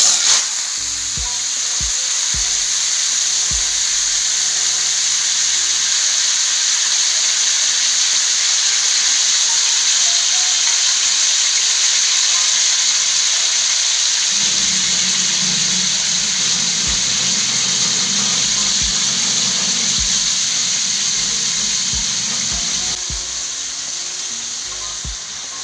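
Whole chicken sizzling in hot oil in a wok: a loud, steady frying hiss that starts the moment the chicken goes into the pan and eases off slightly near the end.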